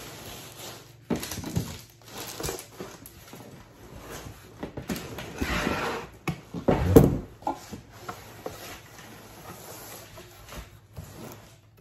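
Cardboard shipping box and packaging rustling and bumping as items are lifted out of it and the box is handled, with one louder knock about two-thirds of the way through.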